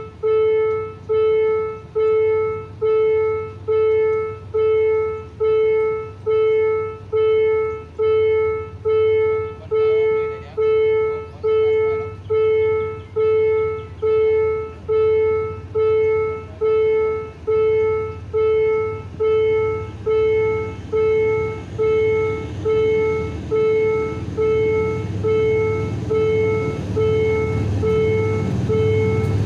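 Level-crossing warning bell ringing steadily, about one ringing strike a second, each one dying away, while the crossing barriers are down. In the last several seconds a low rumble swells up under the bell, the sound of a train approaching the crossing.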